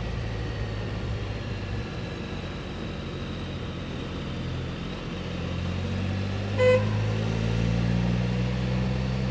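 Can-Am trike's engine running on the road, its note rising about five seconds in as it picks up. About two-thirds of the way through comes one short toot of the horn, pressed by mistake while fumbling the handlebar switches.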